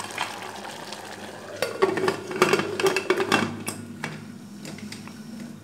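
Aluminium pressure cooker lid being set on and fitted to the pot: a run of metal clanks and scrapes with a short ringing note, starting about a second and a half in and lasting about two seconds.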